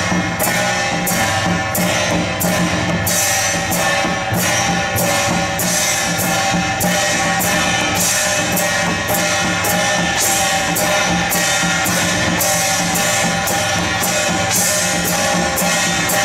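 Procession percussion troupe playing brass hand gongs struck with sticks, together with a drum, in a steady beat of about three strokes a second, the metal ringing on between strokes.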